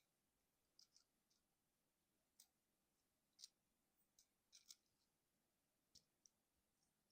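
Faint, irregular clicks of the plastic joints and parts of a Transformers Studio Series 57 Offroad Bumblebee figure being moved and snapped into place while it is converted from Jeep mode to robot mode, about nine in all.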